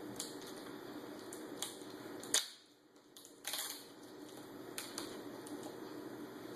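Small clicks and crinkles of aluminium foil tape being peeled off a laptop LCD panel's display connector, with a sharper snap about two seconds in and a short crackling burst a second or so later.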